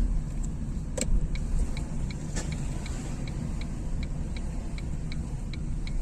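Low road and engine rumble heard inside a moving car's cabin, with a turn-signal indicator ticking evenly at about three clicks a second from just after a single sharper click about a second in.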